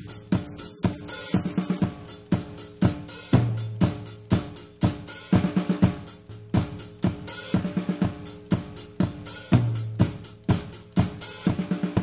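Recorded drum kit playing a repeating beat of sharp hits, with kick drum, snare, hi-hat and cymbals. A deep booming low hit and a quick run of drum hits come back every few seconds.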